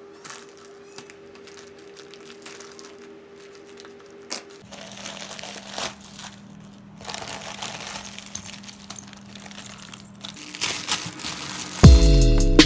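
Plastic courier mailer and clear cellophane bags crinkling and rustling as a parcel is opened and its contents are pulled out and handled. Faint background music runs under it, and louder music comes in near the end.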